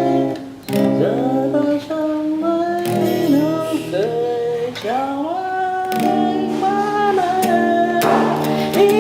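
Song music: a ballad carried by guitar, its melody line sliding up into notes.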